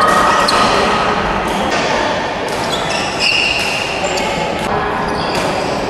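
Ball bouncing and sneakers squeaking on an indoor court, with the noise of a game echoing around a large hall.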